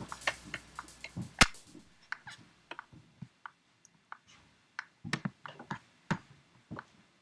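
Sparse, irregular sharp clicks and ticks over a faint hiss, with one louder click about a second and a half in and a small cluster of clicks around five seconds in.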